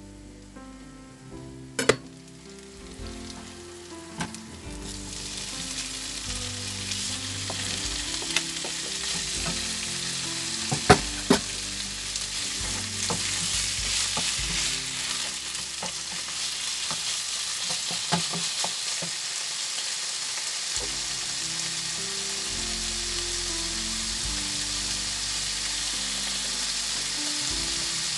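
Diced meat and chopped onion frying in a hot nonstick pan: the sizzle builds over the first few seconds, then holds steady while the food is stirred with a wooden spoon. A few sharp knocks come at the start and again about eleven seconds in.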